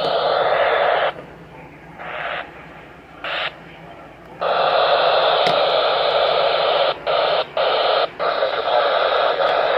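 Weather radio receiver putting out loud static hiss that cuts in and out, dropping away for about three seconds after a second in and breaking off briefly three times near the end.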